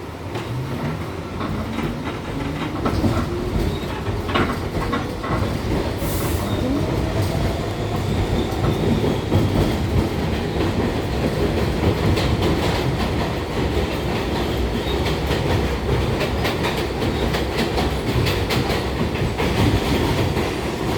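New York City Subway R62A train running, with a faint tone rising in pitch over the first several seconds as it picks up speed, then steady running with the wheels clicking over rail joints.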